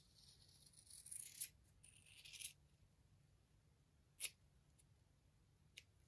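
Scissors cutting woven fiberglass cloth: two faint snips, each a rasping shear lasting about half a second, in the first half, then a single sharp click about four seconds in.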